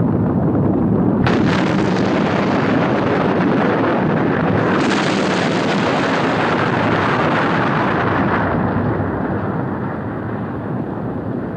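Explosive volcanic eruption: a continuous deep rumbling blast. A sudden harsher burst comes about a second in, it grows harsher again around five seconds, and it eases somewhat after about eight seconds.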